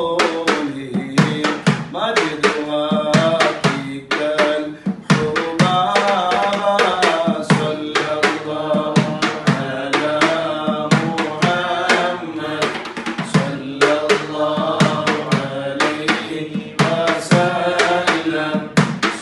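Men chanting an Arabic baith (Islamic devotional verse) in unison to a melody, accompanied by a fast, steady rhythm of hand-struck frame drums (daf) with jingles.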